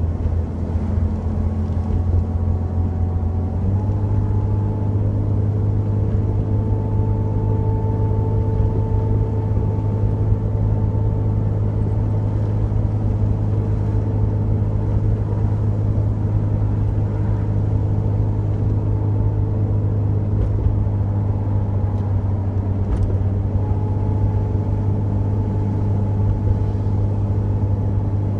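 Jeep Cherokee XJ engine and road noise heard from inside the cabin while driving: a steady low drone with tyre noise. The engine pitch steps up a little about four seconds in.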